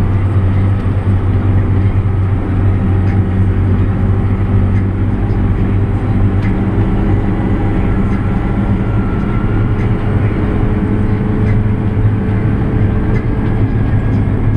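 JCB Fastrac 8310 tractor's diesel engine and drivetrain running at a steady pace while driving along a road, heard from inside the cab as a steady low hum with faint rattles and ticks.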